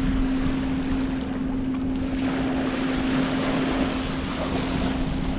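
Wind buffeting the microphone and choppy water splashing and washing around a paddled kayak, with a steady low hum underneath.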